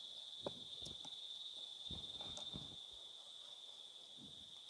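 Steady high-pitched chirring of crickets, with a handful of soft knocks and taps as a plastic container and a metal box grater are handled over a cooking pot.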